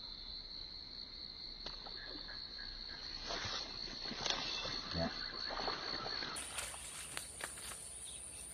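Insects trilling steadily on one high pitch; about six seconds in, a higher-pitched trill takes over. A few light rustles and clicks in the middle.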